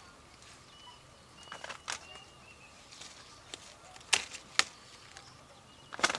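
A few sharp clicks or knocks at irregular intervals, the loudest two about half a second apart near the middle and a quick cluster near the end, over quiet outdoor ambience with faint bird chirps.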